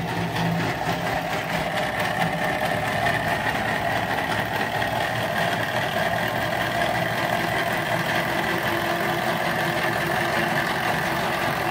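Small homemade Stirling engine of a model boat running on a gas-canister burner: a steady, fast mechanical clatter over the hiss of the burner flame.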